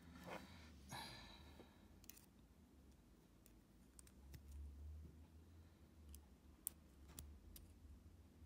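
Faint, scattered clicks from a hook pick and tension tool working the pin tumblers in the brass cylinder of a Brinks Commercial padlock. The clicks come irregularly, about eight of them, with the sharpest a little past two-thirds of the way in, over a low steady hum.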